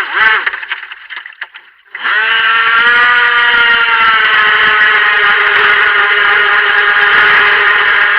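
Helion Rivos RC boat's brushed electric motor: a brief throttle blip dying away, a quiet gap, then about two seconds in it opens up to full throttle and runs as a loud, steady whine.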